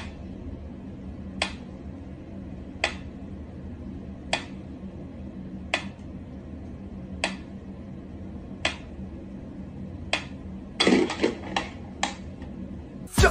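Mechanical pendulum metronome ticking at a slow tempo, one sharp tick about every second and a half. Near the end a few irregular knocks and clicks break the pattern.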